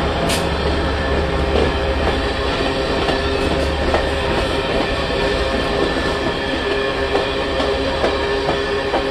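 Union Pacific freight train passing close by: the diesel locomotives' low engine hum fades out about four seconds in as the coal cars roll past. Steel wheels rumble steadily on the rail, with occasional clicks.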